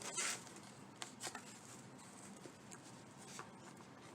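Rope being pulled through a hole in a craft piece by hand: a short rustle at the start, then soft rustling with a few light clicks.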